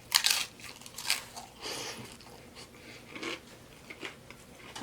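Close-miked biting and chewing of a crunchy taco salad: a sharp crunch right at the start, then a few softer crunches and chewing noises.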